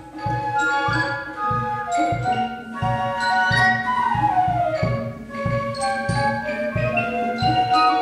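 Drum and fife corps playing: several fifes in harmony carry the melody over a steady drum beat.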